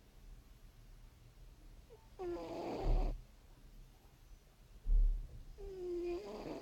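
House cat snoring in its sleep: two pitched snores, each about a second long, one about two seconds in and one near the end. Two short low thumps fall between them.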